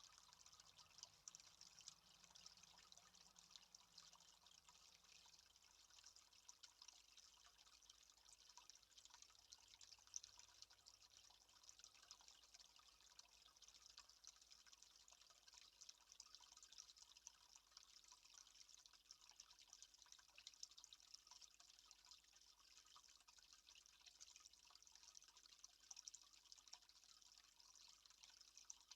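Faint, steady dripping of water, heard as a fine irregular patter.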